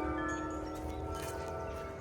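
Metal tube wind chimes ringing in the wind, their many overlapping tones slowly dying away with a few light new strikes. Wind rumbles low on the microphone underneath.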